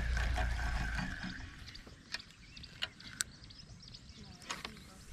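Spinning reel being wound in, under a low rumble of wind on the microphone, followed by a few sharp clicks.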